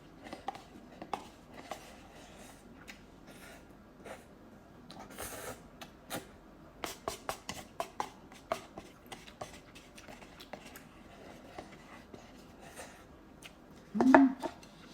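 A person eating spicy instant ramen noodles: chewing and mouth noises with scattered small clicks and taps, a short breathy noise about five seconds in, and a brief voiced sound near the end.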